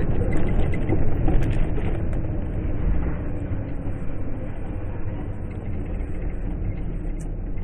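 Steady rumble of a moving vehicle, road and engine noise, easing slightly toward the end, with a few faint knocks about a second in.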